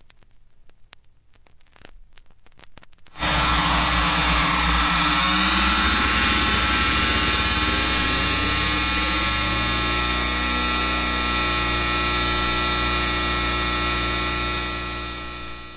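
Electronic science-fiction sound effect: a loud machine-like drone of many layered steady tones over a hiss. It starts suddenly about three seconds in, with sweeping tones over its first few seconds, and fades out near the end.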